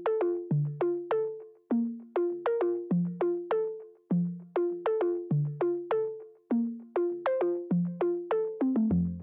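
Background music: a melody of short notes that each start sharply and fade quickly, about two a second, with a deep bass coming in near the end.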